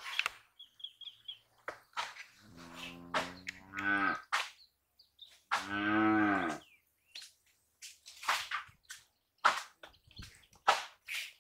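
A cow mooing twice: a long low moo a couple of seconds in, then a shorter one, with a bird's quick high chirps about a second in and scattered rustling and knocks around them.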